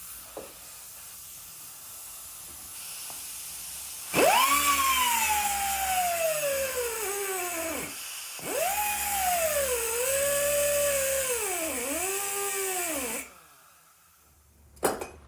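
A high-speed power tool with an abrasive cut-off disc cutting through a hardened steel socket. The motor's whine drops in pitch as the disc bites into the metal, with a harsh grinding hiss over it; there are two long cuts with a short break between, the second with the pitch sagging and recovering several times, before it stops suddenly.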